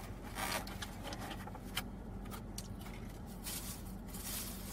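Foam takeout containers being handled, scraping and rustling in several short bursts over a steady low hum.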